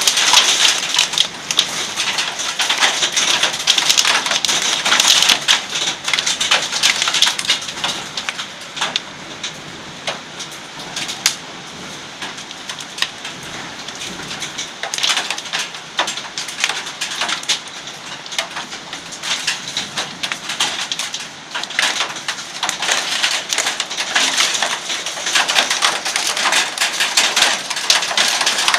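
Thunderstorm rain pouring down, with many close drops ticking as they hit. It eases off in the middle and grows heavier again near the end.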